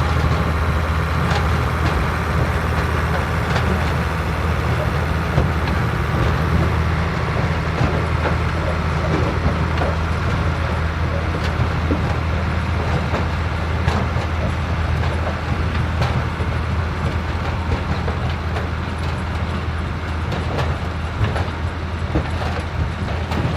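Vintage tractor engine running steadily under load, with scattered knocks and rattles of machinery.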